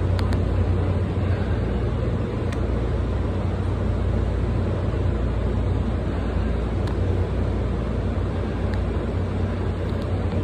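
A Tokyu 8500 series electric train creeping slowly into an underground station platform: a steady low hum and rumble, with a few faint clicks.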